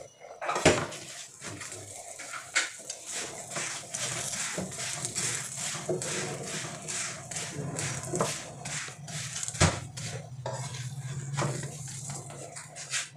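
Potato-stuffed paratha frying in oil on a hot iron tava, with a hiss of sizzling oil. A metal spatula presses and scrapes it in a run of short strokes, with two sharp clinks against the pan, near the start and about two-thirds through.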